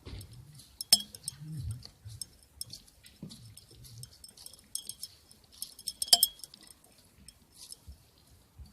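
Scattered sharp clicks and clinks, two louder ones about a second in and about six seconds in, over a faint low murmur.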